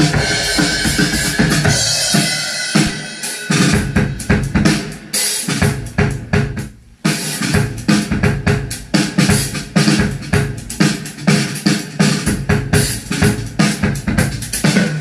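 Drum-heavy sound-test music with a steady kick-and-snare beat, played through a rig of woofers, subwoofers and horn tweeters all driven from one amplifier. The music drops out briefly about seven seconds in, then the beat picks up again.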